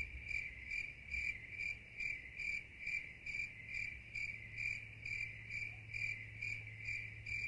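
Cricket-chirping sound effect: an even, regular chirp about twice a second, used as the comic 'awkward silence' gag.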